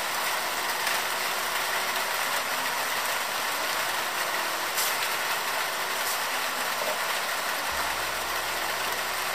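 Heavy summer rain falling steadily, a dense, even patter of drops. A low rumble joins in near the end.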